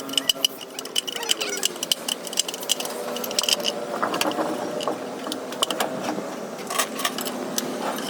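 Rapid, irregular metallic clinks and taps, as tools and metal parts are handled during a truck suspension repair, over a steady background hiss.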